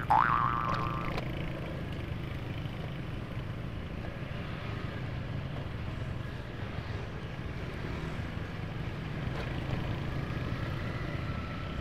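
Motorcycle engine running steadily with road and wind noise while riding. A bright rising electronic tone is heard at the start and stops about a second in.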